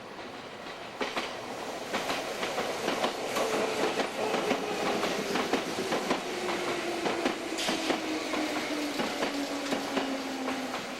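Electric train passing, its wheels clattering over rail joints in a rapid, irregular run of clicks that grows louder about a second in. Under the clatter a single whine falls slowly in pitch over several seconds.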